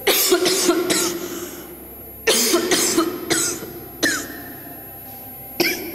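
A person coughing, four short coughs spaced about one and a half to two seconds apart, each with a sharp start.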